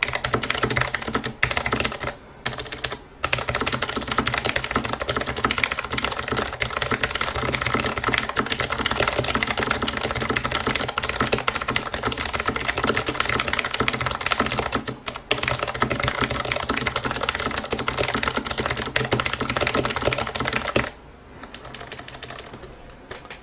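Fast, continuous typing on a HAVIT HV-KB390L low-profile mechanical keyboard with clicky Kailh low-profile Blue switches, a dense stream of key clicks at about 149 words per minute. It breaks off briefly a few times and stops near the end.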